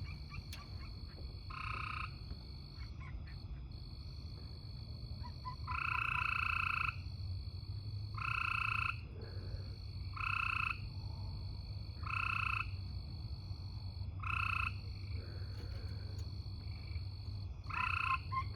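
An animal calling from outdoors: a series of about seven short calls, each held at one steady pitch for half a second to a second, coming roughly every two seconds. The longest and loudest comes about six seconds in. Sounds like puppies yipping.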